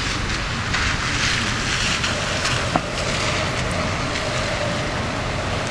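Car tyres hissing and splashing through shallow floodwater on a wet, slushy street, over a steady background hiss. One sharp click about halfway through.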